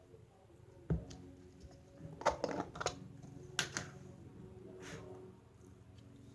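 Slime being squeezed and poked by hand, giving short sticky clicks and pops: one about a second in, a quick cluster around two to three seconds, and a couple more after. Faint music plays underneath.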